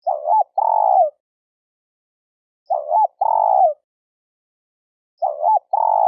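Spotted dove cooing. Three two-part coos about two and a half seconds apart: each is a short note that rises and falls, then a longer note that slides down.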